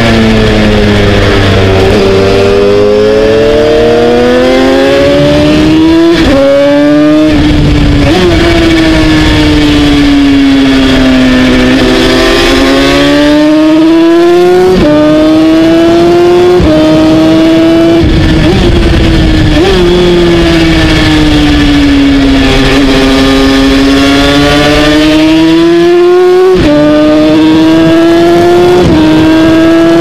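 Yamaha TZ350 two-stroke twin racing engine heard on board at race pace: its note dips and climbs through the corners, with sudden steps in pitch at the gear changes.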